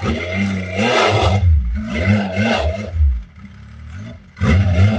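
Snowmobile engine revving hard in three bursts as the sled is driven up a loading ramp, its pitch rising and falling with each throttle blip.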